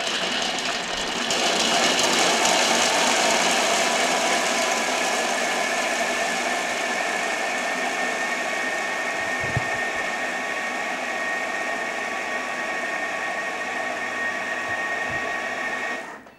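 Countertop food processor with a steel bowl running at high speed, grinding almonds and dates with cardamom and honey: a steady whine over a rushing hiss that cuts off abruptly near the end.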